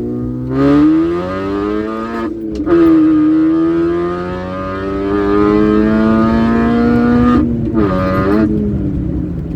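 Supercharged 1.6-litre four-cylinder engine of a 2004 Mini Cooper S, fitted with a Sprintex supercharger kit, accelerating under load: the revs climb, dip at a gear change about two and a half seconds in, climb again for about four seconds, and break off at another shift about seven and a half seconds in.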